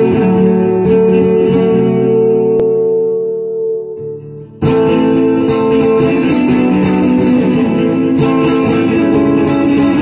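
Guitar-led music: held guitar chords that fade down about four seconds in, then the music comes back in abruptly and louder with a steady beat.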